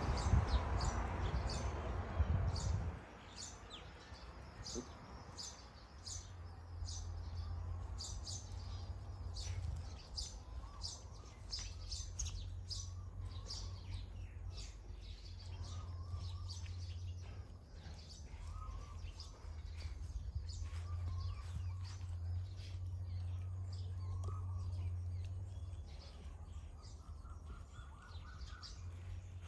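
Small birds chirping, many short high calls scattered throughout with a few warbling notes, over a low steady hum; a louder rush of noise fills the first three seconds.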